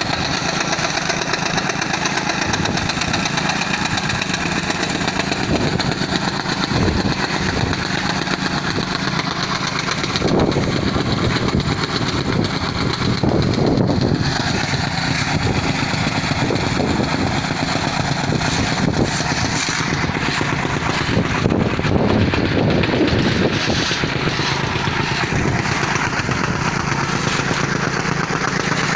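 An engine running steadily, with no starts, stops or pitch changes.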